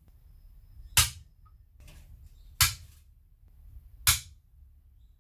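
Hammer striking a center punch three times, about a second and a half apart: sharp taps as the punch marks starting dimples for the drill in a sheet-metal bracket resting on an anvil.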